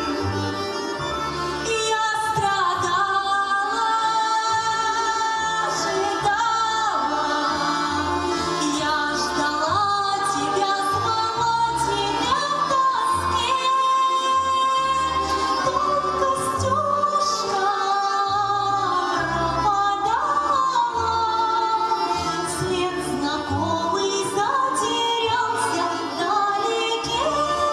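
A woman singing a Russian song with sustained, sliding notes over an instrumental accompaniment with a pulsing bass.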